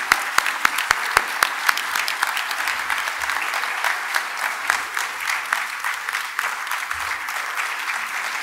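Audience applauding steadily, with sharper, louder hand claps close to the microphone in the first couple of seconds.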